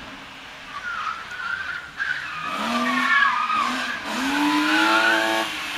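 BMW E36 3 Series rally car accelerating hard through a corner, engine revs climbing from about two seconds in, a brief lift near four seconds, then climbing again, with its tyres squealing.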